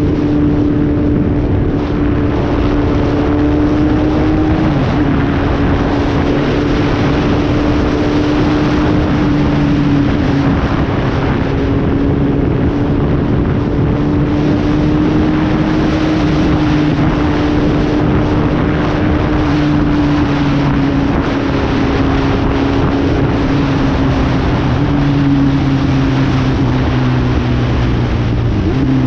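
Four-cylinder ZX-8R sport motorcycle engine holding steady revs on the move, buried under heavy wind noise on the microphone; the engine note sags slightly lower near the end.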